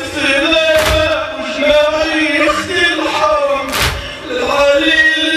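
Male voices chanting a Shia mourning lament (latmiya), with two sharp unison strikes about three seconds apart, the mourners' chest-beating that keeps the lament's beat.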